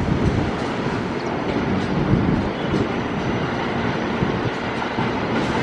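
JR 205 series electric commuter train running along the tracks: steady wheel-on-rail noise.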